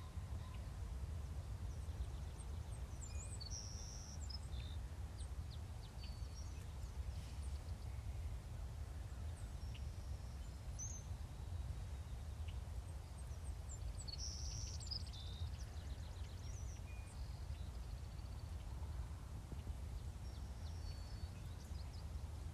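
Steady low outdoor rumble with scattered high, thin songbird chirps, in two clusters a few seconds in and again about two-thirds of the way through.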